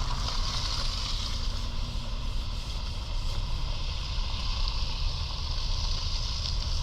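Steady outdoor background noise: a low, fluctuating rumble under a constant hiss, with no clear single event.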